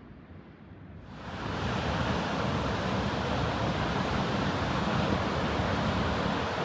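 Sea waves breaking and washing in, a steady rushing hiss that comes in abruptly about a second in, with a low wind rumble on the microphone underneath.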